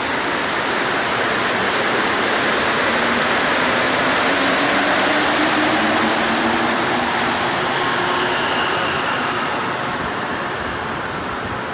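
Montréal Metro rubber-tyred train pulling out of the station: a loud, steady rush of tyres and air that swells as it speeds up and then eases off, with a faint rising motor whine in the middle.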